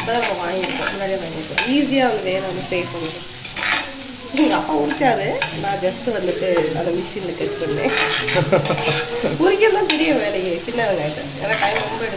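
Chopped shallots frying and sizzling in hot oil in a cast-iron skillet, stirred with a spoon scraping the pan.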